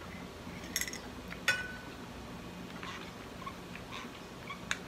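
Coffee being sipped from a ceramic mug, a few small slurping clicks, then one sharp clink with a short ring about a second and a half in as the mug or its spoon knocks, and a lighter click near the end. A low steady hum runs underneath.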